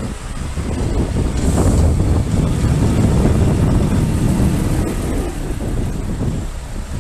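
Motorcycle on the move in slow city traffic: engine and low wind rumble on the microphone, growing louder about a second in and easing off near the end.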